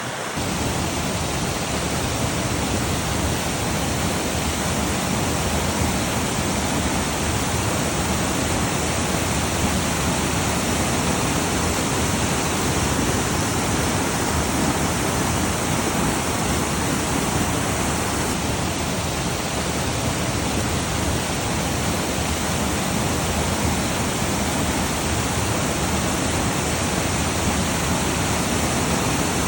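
Flowing water rushing steadily, recorded on a phone. It steps up a little in level just after the start, then holds even.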